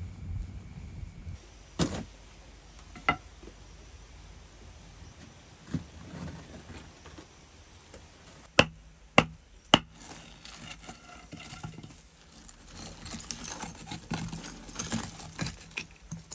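Low rumble of the charcoal fire inside a clay smelting furnace for about the first second, then sharp knocks at the base of the clay furnace as it is broken open, including three loud knocks in quick succession halfway through. Then scraping and crumbling as lumps of slag are dragged out through the opening.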